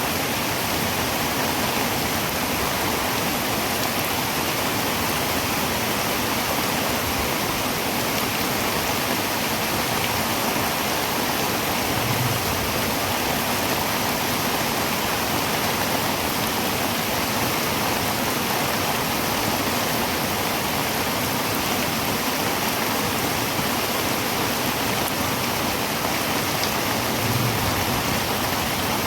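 Heavy rain pouring on a tin roof: a dense, steady hiss in which no single drops stand out.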